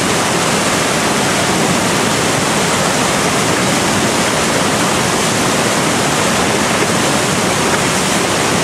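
River rapids rushing: a loud, steady noise of whitewater churning over standing waves.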